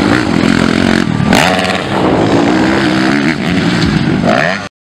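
Motocross dirt-bike engines revving hard on the track, pitch rising and falling with the throttle and gear changes. The sound cuts off suddenly near the end.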